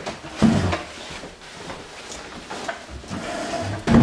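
Two dull knocks of household handling in a room, a short one about half a second in and a louder one near the end, with quiet room noise between them.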